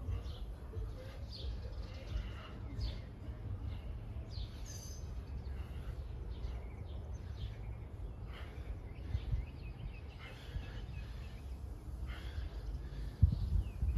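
Small birds chirping on and off over a steady low outdoor rumble, with one sharp thump near the end.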